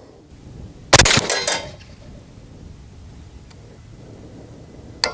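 A single suppressed AR-style rifle shot about a second in, sharp and loud with a short echoing tail, fired to confirm the thermal scope's freshly adjusted zero. A short metallic click near the end.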